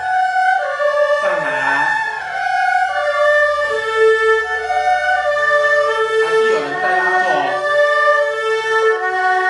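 Erhu bowed through a broken-chord sequence exercise: a run of separate notes stepping up and down through arpeggiated chords, each held a fraction of a second, with a couple of brief pitch slides.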